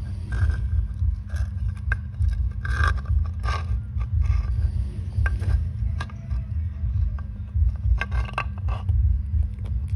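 Baby monkeys gnawing and pawing at a plastic cheese-shaped toy: irregular scraping, clicking and short squeaky rubbing sounds over a steady low hum.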